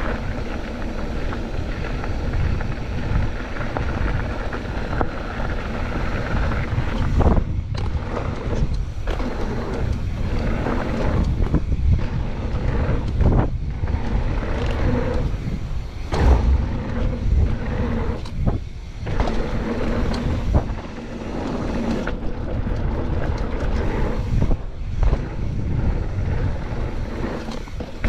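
Wind buffeting an action camera's microphone, mixed with the rumble of mountain bike tyres rolling over a dirt and gravel trail at speed. The noise is steady and loud, dropping out briefly several times.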